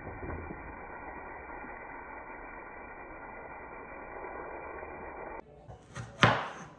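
Tap water running steadily onto vegetables in a colander as hands rinse them. About five seconds in it cuts off, and a kitchen knife chops a green chilli on a wooden cutting board, with one sharp chop near the end.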